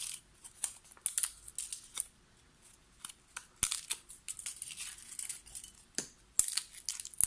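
Dried bay leaves being cut up into small pieces: crisp, dry crackling in short spells, with a quiet pause about two seconds in.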